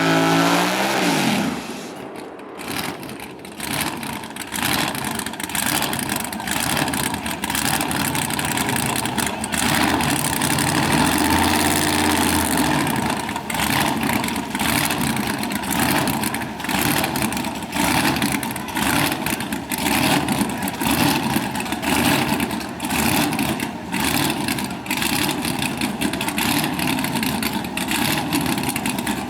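Drag-car engine sound: in the first second or so an engine's pitch drops quickly, then a loud, choppy engine runs on with a rapid crackle.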